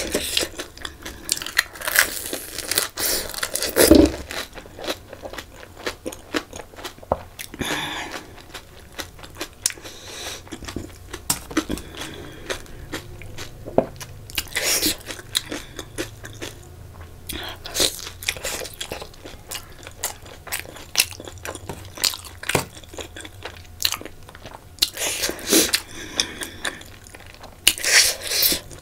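Close-miked eating: crisp panipuri shells crunching as they are bitten, and chewing of chicken momo, in irregular loud bites and crunches.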